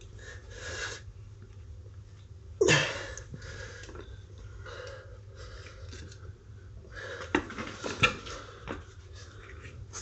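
Scuffing and rustling of a towel and a solid rubber scooter tyre being worked onto its wheel rim by hand, with a sharp scuff about three seconds in and a few short knocks around seven to eight seconds in.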